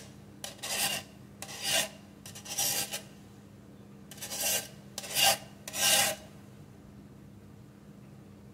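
A metal spoon scraping egg yolks through a fine wire-mesh sieve: about six raspy strokes over six seconds, then it stops.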